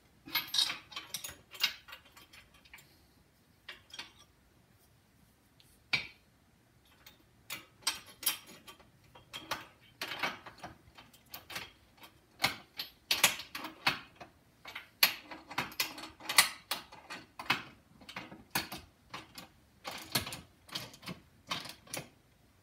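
Ratchet wrench clicking in quick runs of strokes as bolts on a steel press frame are tightened, with a pause of a few seconds near the start.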